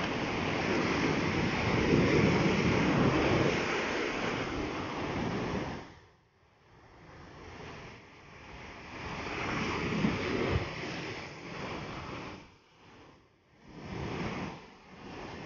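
Ocean surf breaking and washing in around rocks on the shore, in surges: loud at first, falling away about six seconds in, then building again and dipping once more near the end.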